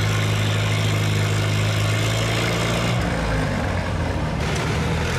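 Farm tractor engine idling with a steady low note that breaks up about three seconds in and settles again near the end.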